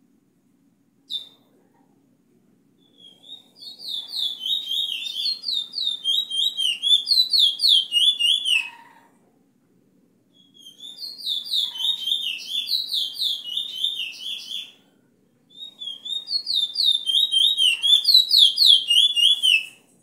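Caged bullfinch song given as a tutor recording for young birds: three phrases of fast, repeated, high whistled notes, each note sliding down, each phrase lasting four to five seconds.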